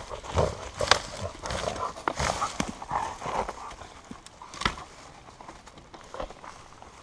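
A Dobermann dragging and biting a long dead branch through brush: irregular cracks, knocks and rustling of dry twigs, with a sharp crack just under a second in and another at about four and a half seconds, quieter toward the end.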